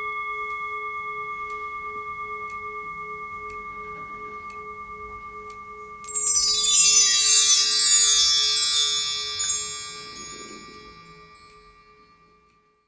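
A struck brass singing bowl rings on with a slow pulse, fading. About six seconds in, a mark tree (bar chimes) is swept once, a cascade of tinkling notes falling in pitch that rings out and dies away near the end.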